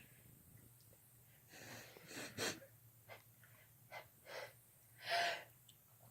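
A person's short, catching in-breaths and gasps, about seven of them at uneven intervals, the longest about five seconds in: the build-up to a sneeze.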